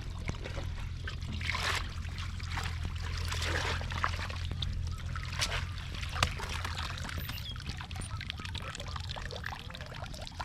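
Water splashing and trickling irregularly over a steady low rumble, with one sharp knock about six seconds in.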